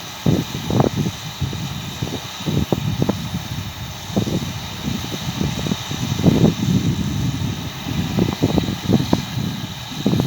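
New Holland T6.180 tractor running with a round baler working hay, under irregular low rumbling gusts of wind buffeting the microphone.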